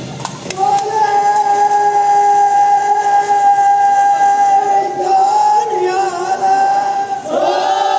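A single voice sings one long, steady held note. About five seconds in the pitch wavers and shifts, and near the end it swoops up into a new held note.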